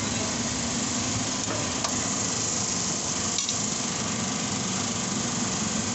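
Steady mechanical hum under a broad hiss, with a faint click or two.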